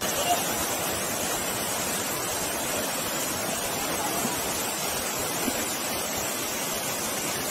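Steady rush of water from a waterfall and its rocky stream.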